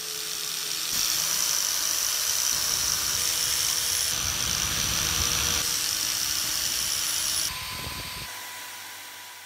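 Power tool with a spinning wire brush scrubbing rust off a steel part of an antique mechanical scale held in a vise: a steady high whirring hiss that grows louder about a second in and drops suddenly about seven and a half seconds in to a quieter hum.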